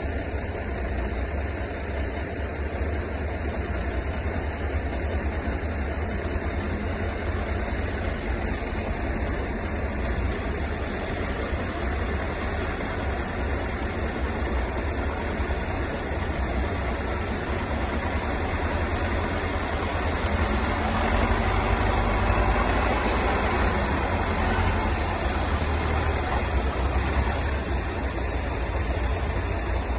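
Engine of an old articulated wheel loader running steadily as it moves a trailer of firewood, with wind rumbling on the microphone. It grows a little louder about two-thirds of the way through.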